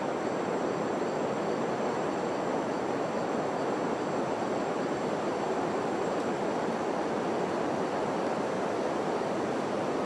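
Steady rush of a river flowing below the bridge, an even unbroken noise with faint steady high-pitched tones over it.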